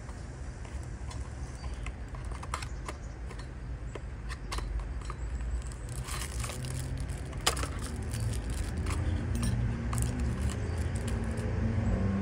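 Cardboard packaging being handled: scattered clicks, taps and scrapes as a rigid black box is lifted and turned, the sharpest click about halfway through. Under it runs a steady low rumble that grows louder and hums faintly in the last few seconds.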